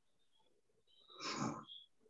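About a second of silence, then a short intake of breath lasting about half a second, taken just before the next chanted word.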